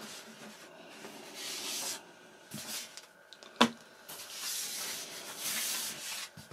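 Hands handling and turning over a moulded foam model-aircraft wing: two stretches of rubbing and scuffing, and one sharp knock about three and a half seconds in.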